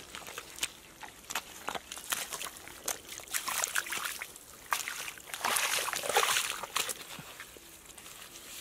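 Bare hands scooping and squelching through wet mud and muddy water, with irregular wet slaps and splatters and a longer, louder slosh about five and a half seconds in.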